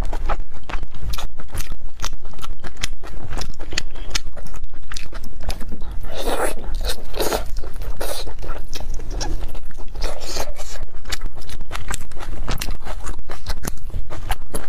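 Close-miked chewing of soft braised pork belly: dense small mouth clicks, with louder bursts about six seconds in and again around ten seconds.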